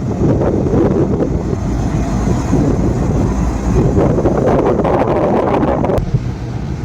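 Railway locomotive running, heard as a loud steady rumble mixed with wind buffeting the microphone; the sound changes abruptly about six seconds in.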